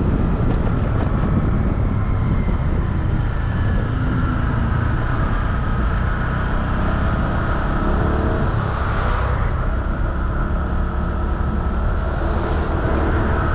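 Motorcycle running steadily on the road, its engine note faint under a heavy, even rumble of wind and road noise.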